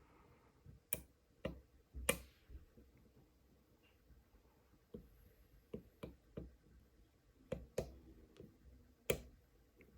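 Lock pick and tension wrench working the pin tumblers of an Almont re-key padlock: scattered small, sharp clicks as pins are lifted and set, in three loose groups with a quieter gap in between.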